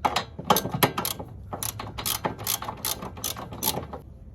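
Hand socket ratchet clicking through a run of short strokes on the suspension bolts.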